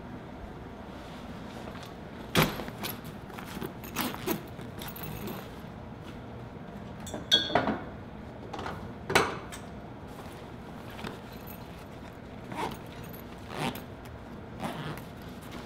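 Scattered metallic clinks and jangles as a backpack and its metal carabiner and buckles are handled, the loudest cluster about seven and nine seconds in, over a steady background hiss.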